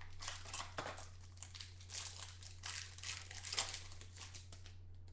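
Clear plastic wrap crinkling and crackling in irregular handfuls as it is pulled off a trading-card mini box by hand, stopping near the end, over a steady low hum.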